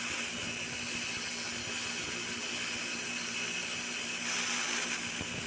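Small electric grinder running steadily with a grinding hiss as it cuts a groove into a synchronous motor's shaft; the hiss grows brighter about four seconds in.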